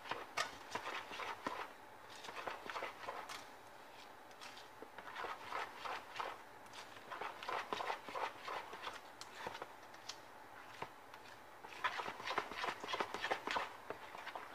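A utensil stirring a thick yogurt and tahini sauce in a bowl, a quick run of clicks and taps against the bowl that comes in bursts of a second or two, with short pauses between them.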